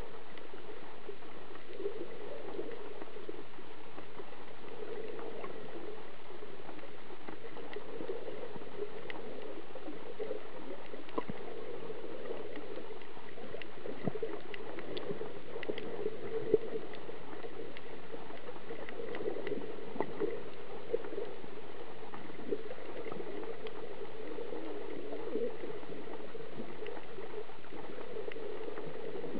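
Muffled underwater sound picked up by a camera held under the water while snorkeling: a steady low wash of water with faint scattered clicks and crackles.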